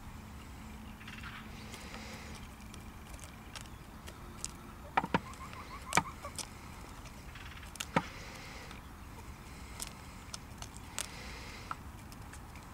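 Chickens pecking mixed grain from a plastic tub: irregular sharp taps of beaks on seed and plastic, loudest around five to eight seconds in.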